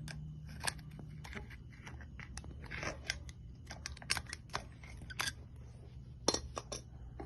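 Small irregular clicks and sticky scrapes as grease is worked into a bicycle wheel hub's bearing cup by hand, before the ball bearings go in.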